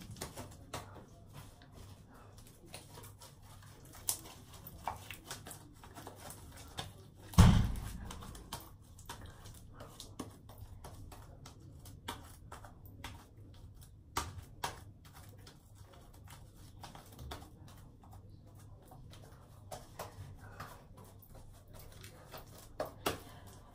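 Scattered small clicks and knocks of things being handled on a table, with one louder thump about seven and a half seconds in.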